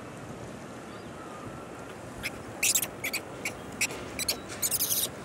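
Steady wind-and-sea ambience, then from about two seconds in a run of short, shrill, high-pitched animal calls, coming more often toward the end.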